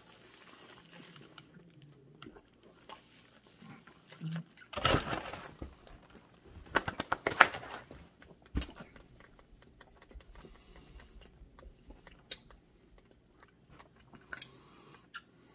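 A person chewing a bite of a fried chicken sandwich, with soft wet clicks of the mouth. Two louder rushes of noise come about five and seven seconds in, and a sharp click follows a little later.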